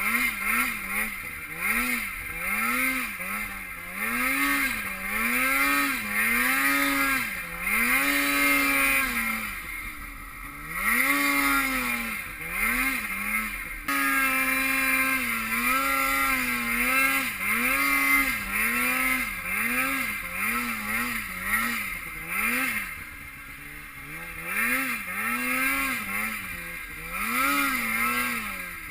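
Snowmobile engine revving up and down over and over, its pitch rising and falling about once a second with a steadier stretch near the middle, as the throttle is worked on and off while riding.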